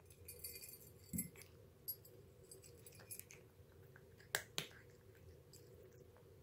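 Cat eating from a bowl: faint chewing with scattered small clicks and crackles, two sharp clicks close together about four and a half seconds in.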